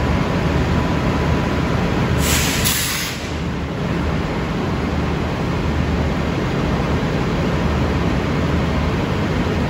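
Diesel railcar set's underfloor engines idling with a steady low hum. A short hiss of compressed air, about a second long, comes about two seconds in.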